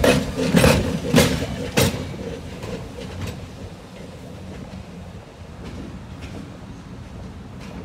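Diesel locomotive's wheels clicking over rail joints as it rolls past close by, a sharp click about every half second. After about two seconds the clicks fade into a quieter low rumble as the train moves off.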